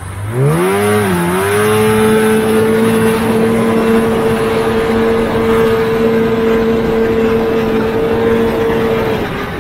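Polaris TX340 vintage snowmobile's two-stroke engine revving up quickly, dipping for a moment, then held at a steady high pitch for several seconds before easing off near the end.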